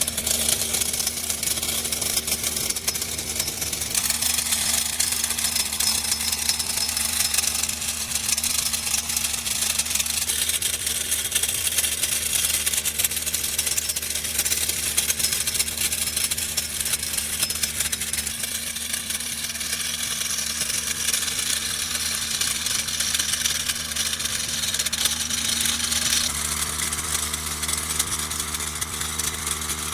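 Small engine of a homemade grass-cutting machine running steadily, with a change in its sound about four seconds in and again near the end.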